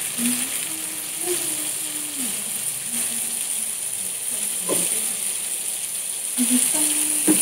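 Meatballs frying in oil in a pan, a steady sizzling hiss. Over it a person hums a few low, held notes, the first run lasting about two seconds and another near the end.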